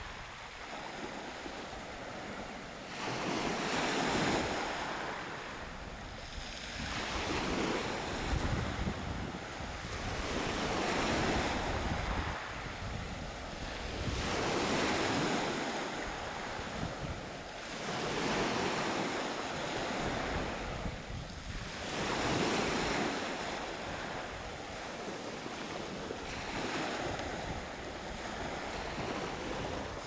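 Small sea waves breaking and washing up a pebble beach, swelling and ebbing about every three to four seconds, with wind buffeting the microphone.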